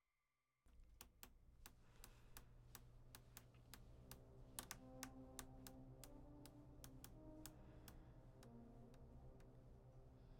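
Faint, irregular clicking, several clicks a second, over a low steady hum that starts after a brief silence; soft low sustained tones come in about halfway.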